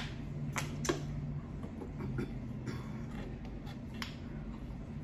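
Scattered short clicks and light taps from drinking out of a plastic water bottle and handling fried food, over a low steady hum.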